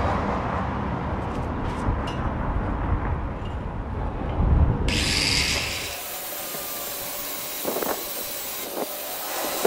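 A handheld electric angle grinder cutting into metal. A heavy low rumble fills the first half, and about five seconds in the sound turns to a higher, hissing grind that carries on.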